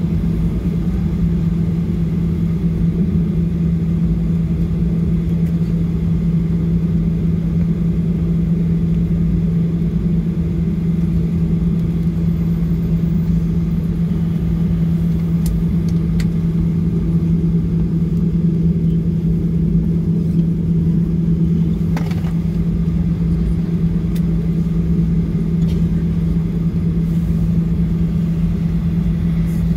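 Cabin noise of a Boeing 737-800 taxiing after landing: its CFM56-7B engines at idle make a steady drone with a constant low hum over a deep rumble.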